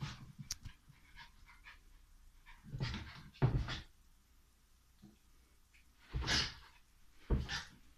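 Miniature schnauzer puppy playing with a latex balloon on carpet: short noisy scuffles and bumps, four bursts a few seconds apart.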